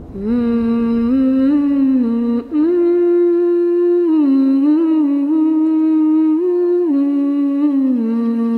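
A single voice humming a slow melody, holding notes that step up and down, with a short break about two and a half seconds in.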